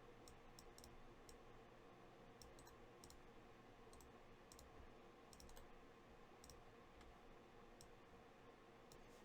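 Near silence: faint room tone with scattered light clicks, about two a second at irregular spacing.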